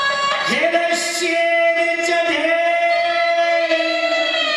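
Haryanvi swang folk singing: after a short phrase, a voice holds one long, steady note from about half a second in until near the end.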